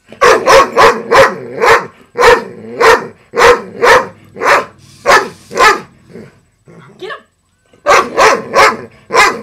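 Large dog barking repeatedly in deep, loud barks, about two a second. The barking breaks off for about two seconds around six seconds in, then starts again in a fast run near the end.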